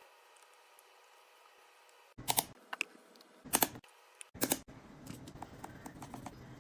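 Precision screwdriver clicking as it tightens the tiny screws of an iPhone 13's screen and battery shield plates to torque. It comes as four short clusters of sharp clicks after about two seconds of near silence.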